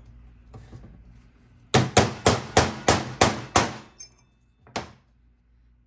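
Hammer striking a steel punch, about eight sharp metallic blows in quick succession at roughly four a second, then one more blow about a second later: driving the worn bushing out of a Dodge 48RE transmission's sun gear.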